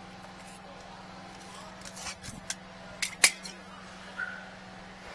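A steady low machine hum, with a cluster of sharp clicks and knocks from equipment being handled about two to three and a half seconds in, the loudest near the end of that cluster.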